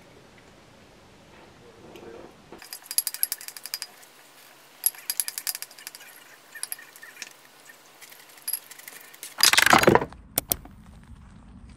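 Wooden spoon scraping and clinking against a ceramic bowl in quick, irregular strokes, scraping the bowl clean. Near the end a short, loud rush of noise breaks in.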